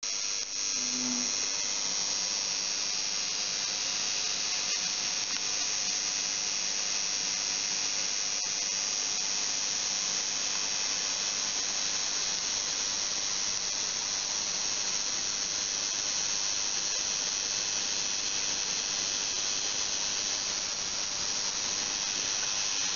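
Flowing-water ultrasonic cleaning rig running, with water streaming into a steel cup in an ultrasonic tank. It makes a steady, high-pitched hiss and whine that stays constant throughout.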